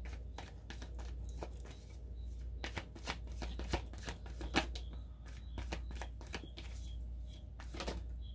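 A deck of tarot cards being shuffled by hand: irregular soft snaps and flicks of the cards, over a steady low hum.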